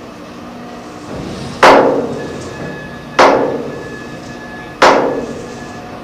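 Hammer striking steel three times, evenly about a second and a half apart, each blow ringing out with a metallic tone, over a steady low hum.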